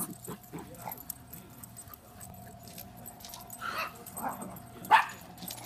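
Puppies at play, giving a few short yips and barks in the second half, the loudest a sharp one near the end.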